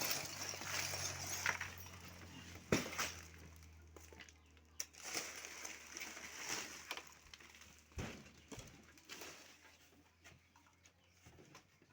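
Scattered clicks, taps and rustling as small spare electronic parts are handled, with a sharp click about three seconds in. A faint low hum fades out around halfway.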